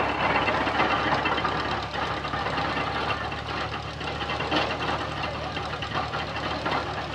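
Old stationary engine running steadily, driving a cane press as stalks are fed through it, with crowd voices in the background.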